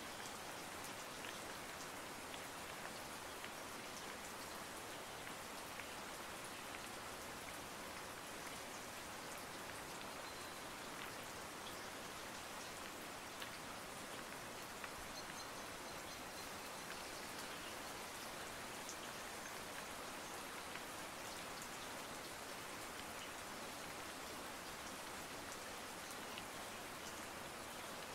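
Steady rain falling: an even hiss dotted with faint ticks of single drops.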